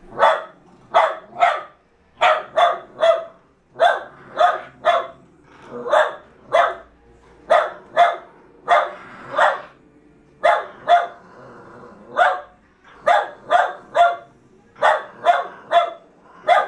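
Jack Russell terrier barking over and over, sharp, high barks in quick twos and threes, roughly two a second.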